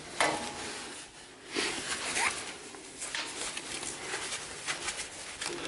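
V-belt being worked by gloved hands onto a multi-groove lathe pulley: rubber scraping and rubbing against the metal pulley, with a sharp knock just after the start and scattered small ticks.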